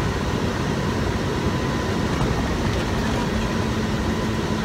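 Steady engine and road noise of an International semi tractor heard inside its cab while driving, a dense low rumble without breaks. A steady hum rises into it about three seconds in.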